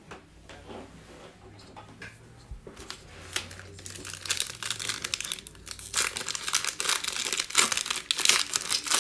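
A foil Panini Mosaic basketball card pack being handled and torn open, its wrapper crinkling. The crinkling starts about three seconds in and gets denser and louder toward the end.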